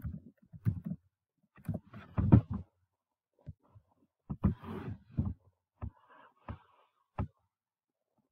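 Computer keyboard and mouse in use: soft key taps and thumps, then about five sharp clicks spaced roughly two-thirds of a second apart in the second half.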